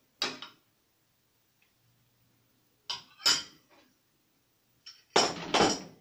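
A metal spoon clinking and knocking against ceramic dishes in a few short strokes, with a louder double clatter about five seconds in.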